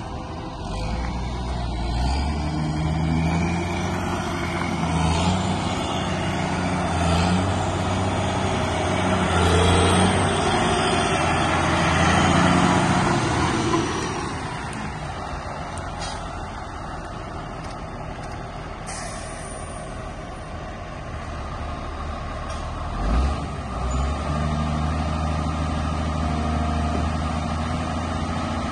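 A Caterpillar 140H motor grader's diesel engine running as the machine drives by. The engine note steps up and down, louder in the first half as it passes close, then quieter and steadier as it moves away. A single brief thump comes about three-quarters of the way through.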